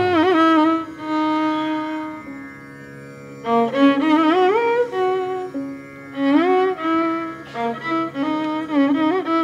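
Instrumental music: a bowed string melody with sliding, wavering notes over a steady drone, in the style of Carnatic music.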